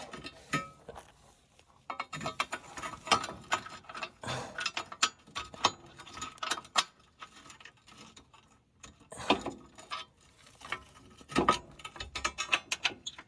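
Ratchet wrench clicking in quick runs, with short pauses, as the bolts of the stabilizer bar bushing plate are driven in under the car. A couple of heavier knocks stand out in the second half.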